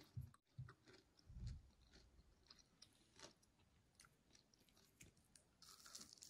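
Faint chewing of a crisp fried pasta-and-vegetable fritter: a few soft low thumps early on the first second and a half, then scattered light clicks, all very quiet.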